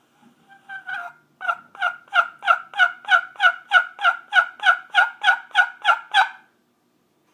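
Handmade turkey call played in a steady run of about sixteen yelps, about three a second, each note breaking from a high tone down to a lower one, after a few softer starting notes.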